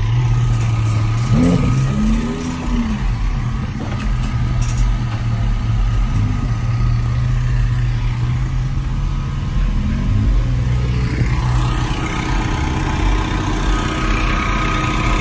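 A car engine idling steadily, with a few short throttle blips that rise and fall in pitch.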